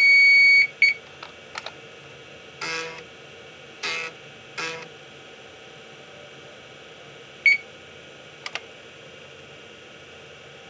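IBM PS/2 Model 30's internal speaker gives a loud, high beep lasting well over half a second, with a short second beep just after. The floppy drive then makes three short grinding bursts of head movement, and a brief beep comes again later.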